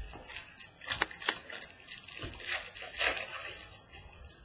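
Trading cards being handled: irregular rustling and light snapping as cards are slid and flicked, with two sharper clicks about a second in.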